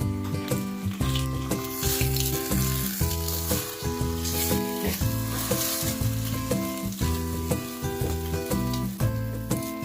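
Food sizzling as it fries in a pan, loudest in the first half. Background music with a steady beat plays along with it.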